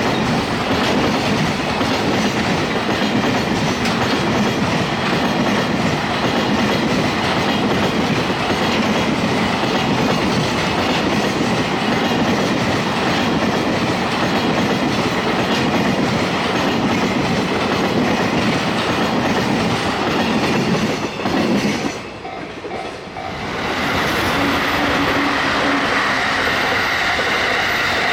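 Trains running close past a level crossing, with continuous loud rail noise. There is a brief lull about 22 seconds in, then another train with a steady whine.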